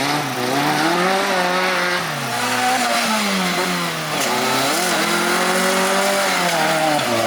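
Off-road 4x4's engine revving, the revs swelling up and sinking back down again and again, every second or two.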